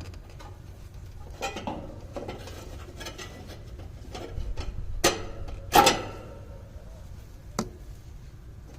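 Metal tools and parts clinking and clanking while being handled, with two sharp ringing clanks about five and six seconds in and a smaller click later, over a steady low hum.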